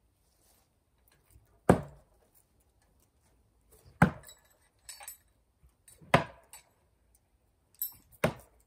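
Thrown axes striking a wooden log-round target, four sharp impacts about two seconds apart, with a few fainter knocks in between.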